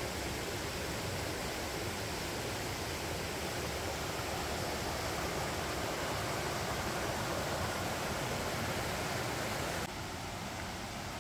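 Rocky mountain stream rushing over stones and small rapids, a steady full rush of water that drops slightly and changes in tone about ten seconds in.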